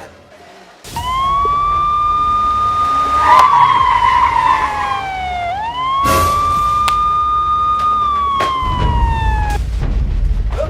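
A siren wailing through two cycles: each time it rises quickly to a held high tone, then slides steadily down. A rough crackle sounds alongside it during the first cycle.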